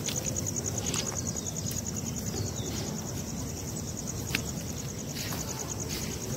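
Crickets trilling: a high, rapid, even pulsing that runs on steadily, over a low background rumble with a few faint clicks.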